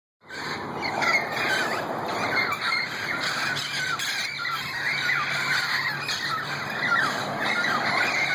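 A flock of wild parrots squawking and screeching, many short harsh calls overlapping without a break.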